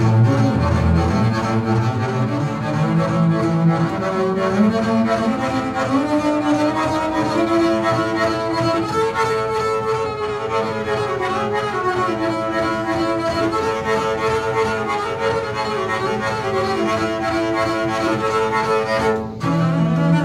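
Solo double bass, played with the bow: a slow melody in sustained notes. About 19 seconds in the sound briefly breaks off, then a new low note is held.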